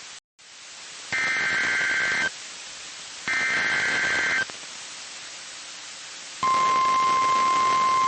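NOAA Weather Radio alert start: two one-second bursts of screeching SAME digital header data, then about six seconds in the steady 1050 Hz warning alarm tone comes on and holds, over faint radio hiss. The tone marks a warning-level alert, here a severe thunderstorm warning.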